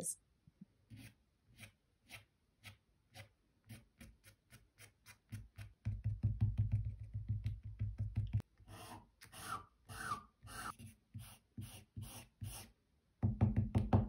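Ink-dipped twig tapping and scratching on paper: a run of quick dabs, then a longer scratchy scrubbing about halfway through, then more short strokes.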